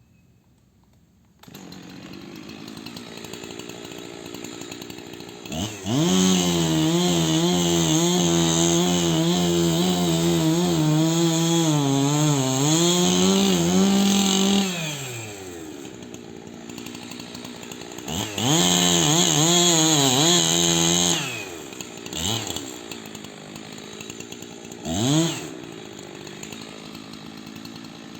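Chainsaw idling, then revved to full throttle for about nine seconds, its pitch wavering and dipping under load as it cuts into the tree, dropping back to idle; a second full-throttle cut of about three seconds follows, then a brief blip of the throttle near the end.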